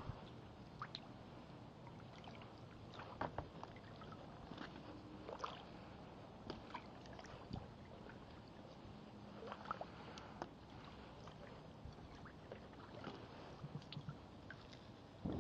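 Quiet kayak paddling: small splashes and drips from the paddle blade every second or two, over the soft wash of water along the hull.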